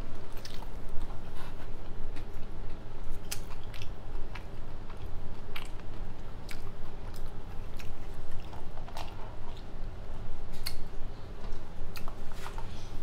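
Close-up mouth sounds of chewing a sushi roll: wet smacks and sharp clicks scattered irregularly, over a steady low hum.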